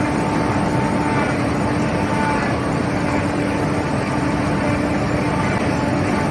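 4YZ-4T corn harvester running at steady speed: a dense, even machine noise with a constant hum.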